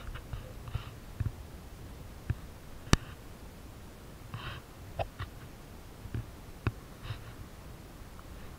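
Scattered light taps and knocks, about six in all, the sharpest about three seconds in, over a low steady rumble of wind on the microphone.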